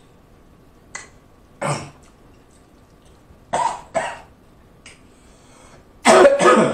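A man coughing in short separate bursts, with the loudest bout of coughs near the end.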